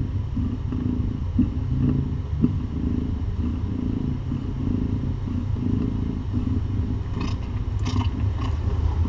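Domestic cat purring steadily while being stroked on the head, the purr swelling and fading about twice a second with her breathing. A few faint clicks near the end.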